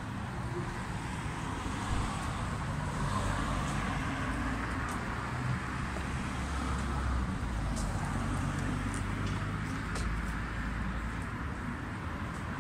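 Motor vehicle noise: a steady low rumble with a broad hiss that swells and fades over several seconds, and a few faint clicks.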